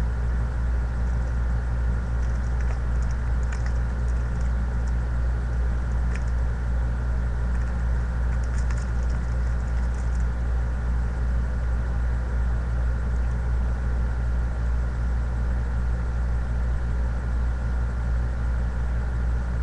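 A steady low hum, with a few faint crinkles and ticks in the first half from a syringe's plastic packaging being handled by gloved hands.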